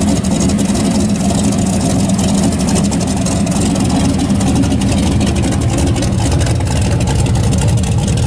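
Custom hot-rod station wagon's engine running as the car rolls slowly across grass, with a loud, deep exhaust note and a choppy pulse.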